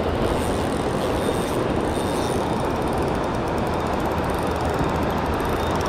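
Shallow river water rushing over a riffle, a steady wash of white water.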